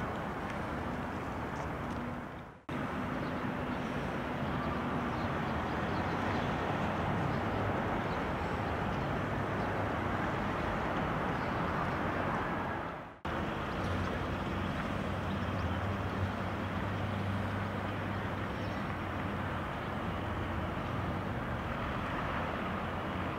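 Outdoor town ambience: a steady wash of traffic noise with a low hum. It drops out briefly twice.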